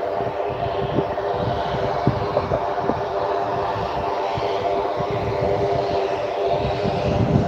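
Single-engine high-wing aircraft's engine and propeller running at a steady pitch as it taxis slowly on the runway, with wind rumbling on the microphone.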